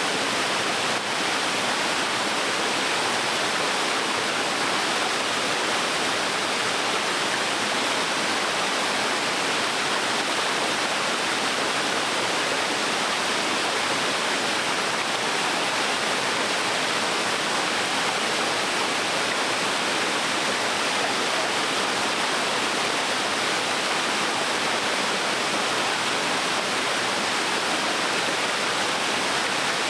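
Small waterfall splashing into a stream, a steady, even rush of falling water.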